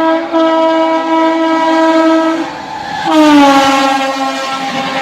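Shatabdi Express locomotive horn sounding a long steady blast, then after a short break a second blast whose pitch falls as the train passes at speed. Near the end the horn gives way to the rushing noise of the train going by.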